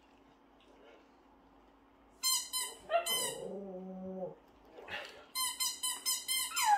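A baby's electronic musical toy plays a bright tune in quick spurts from about two seconds in. Partway through, a Shih Tzu joins in with a short, low, held howl.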